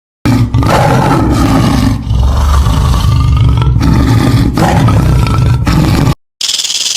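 A large animal roaring: a run of loud, deep, rough roars with short breaths between them, cutting off near the end, where a different, high hissing sound starts.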